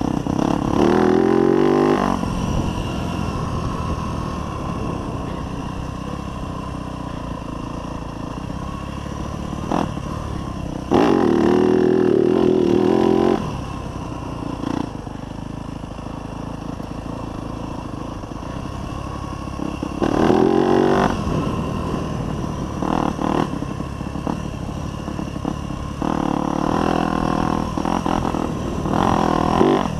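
2024 Yamaha YZ250F's 250cc single-cylinder four-stroke engine under way on a dirt track, revving up hard in four spells of acceleration with rising pitch: near the start, about eleven seconds in, about twenty seconds in, and over the last few seconds. In between it runs quieter at lower revs while the rider eases off.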